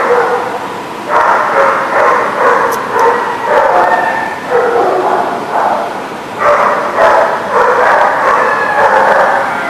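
Dogs barking and yipping over and over in rough play, bursts following one another with hardly a pause, loudest in two spells in the first half and toward the end.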